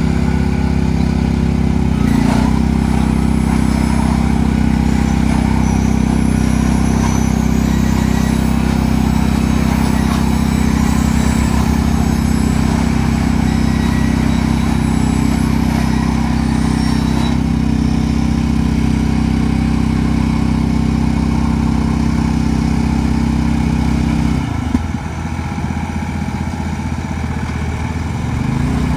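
Farm tractor engine running steadily. Its note drops for a few seconds near the end, then comes back up.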